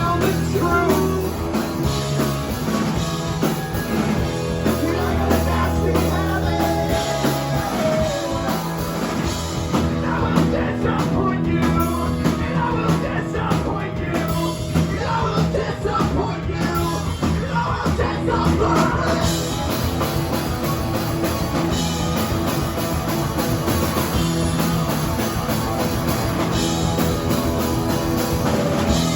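Rock band playing live at full volume, with a singer's vocals over the band.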